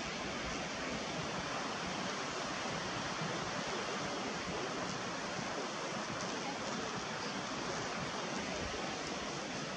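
Steady rushing noise of wind and sea, with no distinct events.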